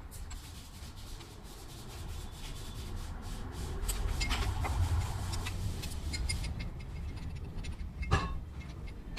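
Hand work on a car engine during water pump removal: metal parts and tools rubbing and scraping, with scattered small clicks and a sharp knock a little after 8 seconds.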